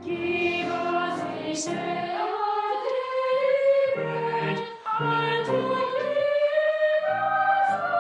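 Boys' treble choir singing a slow, sustained melody, the high voices holding and gliding between notes with lower parts entering underneath.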